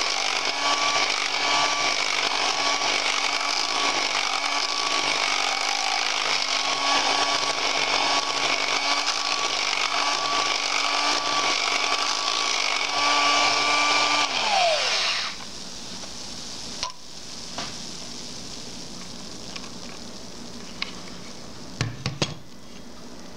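Electric food mixer running steadily with a whine, its beaters whisking a liquid drink in a bowl. About fourteen seconds in it is switched off and the whine falls as the motor spins down, followed by a few light knocks.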